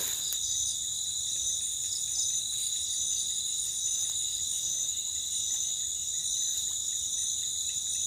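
Night chorus of crickets and other insects: two steady shrill trills, one higher than the other, with faint pulsing chirps underneath.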